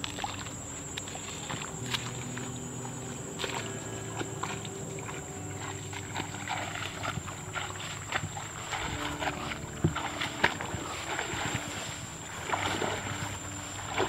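A person wading through shallow, weedy river water, the legs sloshing and splashing with each step, with a steady high-pitched whine throughout.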